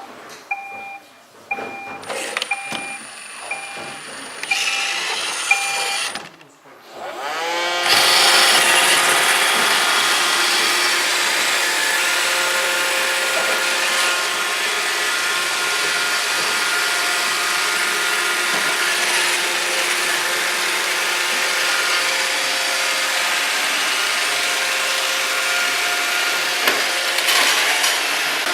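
iRobot Roomba 650 robot vacuum: a row of short electronic beeps, then its motors spin up about seven seconds in and run steadily, the suction fan and brushes whirring as it cleans.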